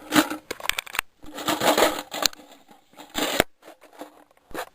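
Irregular clattering, rustling and scraping with several sharp clicks.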